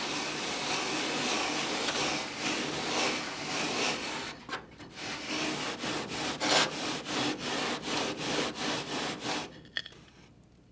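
Sharpened aluminium scraper gouging out old refractory kiln insulation. First comes about four seconds of continuous scraping, then short, rapid strokes at about three a second that stop near the end.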